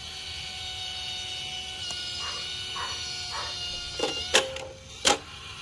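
Three sharp knocks close together near the end, over a steady faint background hiss with a few thin high tones; three soft, evenly spaced blips come before them.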